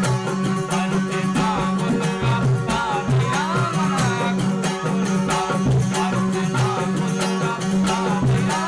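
Balochi folk music played live: a bowed suroz fiddle and a plucked dambura lute over a steady hand-played dholak drum beat, with a man singing a wavering melody.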